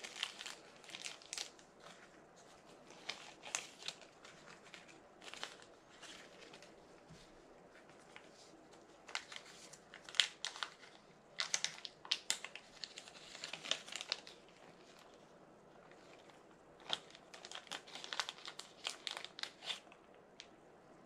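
Small clear plastic zip-top parts bags crinkling as fingers handle and search through them, in irregular clusters of crackles with short pauses between.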